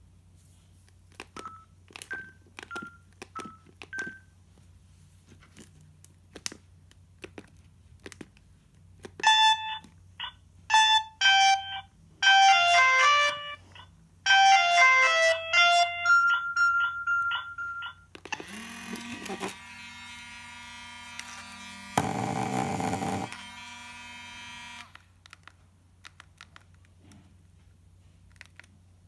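Samsung SGH-C160 and SGH-C450 mobile phones beeping as their keys are pressed, then playing short electronic melodies of stepping tones through their small speakers, a held beep, and a steady electronic tone with a louder buzz for about a second near the middle.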